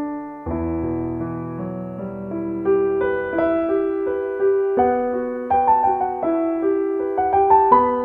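Solo piano music: a slow melody of single notes over held chords, with a deep bass chord struck about half a second in.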